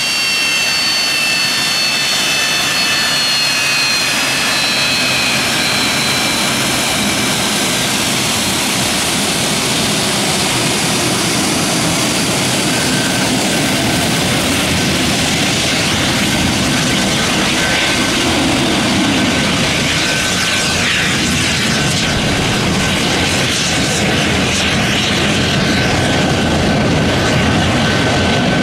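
Boeing 737-200's Pratt & Whitney JT8D turbofan engines running at taxi power as the jet passes and moves away. A high whine of several tones falls slowly in pitch over the first several seconds, then steady jet noise continues with one thin whine held steady.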